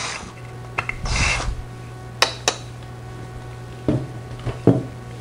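A drill bit briefly scraping round the edge of a hole in a die-cast metal box, deburring it, over a steady low hum. Two sharp metallic clicks follow, then a few duller knocks as the box is handled.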